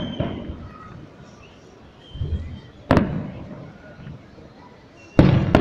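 Fireworks shells bursting: a dull thud, then a sharp bang about three seconds in that rings out and fades, and a louder cluster of cracking bangs near the end.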